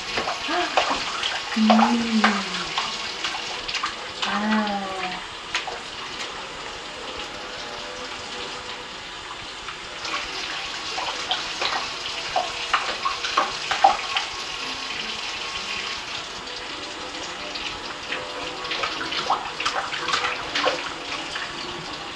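Bath water splashing and sloshing in a stainless steel kitchen sink as a baby paddles his hands in it: many small, sharp splashes over a steady watery hiss. Two brief voice sounds come about two and four and a half seconds in.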